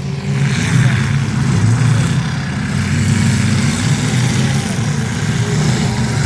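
Demolition derby cars' engines running loud and steady, a dense engine rumble that picks up just after the start.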